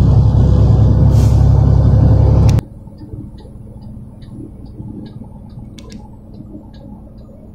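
Loud, steady road and engine rumble of a vehicle at highway speed, heard from inside the cabin. About two and a half seconds in it cuts off abruptly to a much quieter cabin hum with a light, regular ticking, about three ticks a second.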